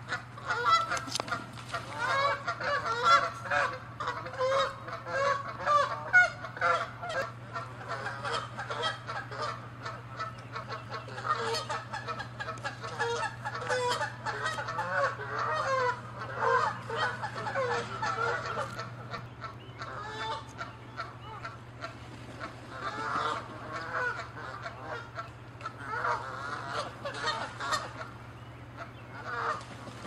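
Canada geese honking in many overlapping calls as they chase and fight each other, the agitated calling of territorial aggression. The calling is densest and loudest in the first several seconds, then comes in separate clusters of honks.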